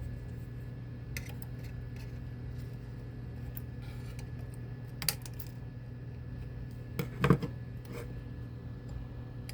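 Cutters snipping the protruding leads of a freshly soldered resistor: a few sharp clicks, the loudest pair about seven seconds in. A steady low hum runs underneath.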